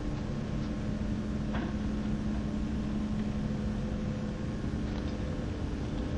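A small car ferry's engines running, a steady low drone with a constant hum, heard from inside the passenger lounge.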